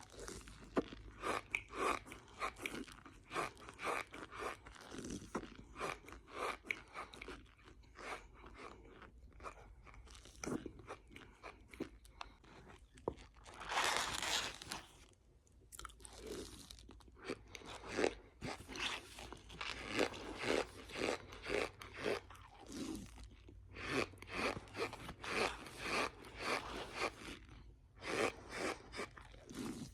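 Chewing chunks of cornstarch: a fast run of squeaky, crunchy bites, with one longer, louder crunch about halfway through.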